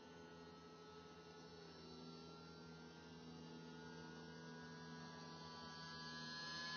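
Faint, steady whine of a small RC model seaplane's motor and propeller in flight, growing louder and rising in pitch near the end as the plane comes closer.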